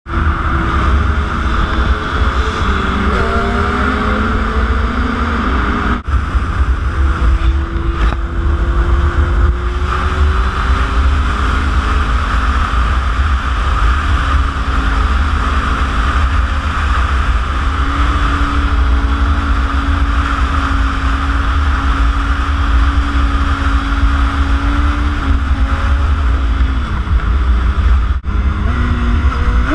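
Sport bike inline-four engine running at highway speed under heavy wind rumble on the bike-mounted camera microphone. The engine note rises as it accelerates a few seconds in, then holds steady.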